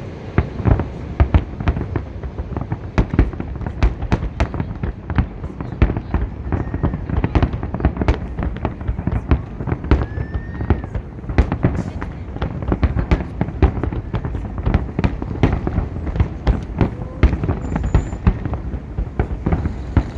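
Fireworks salute: a dense, continuous barrage of bangs and crackles from many shells bursting in quick succession, over a low rumble.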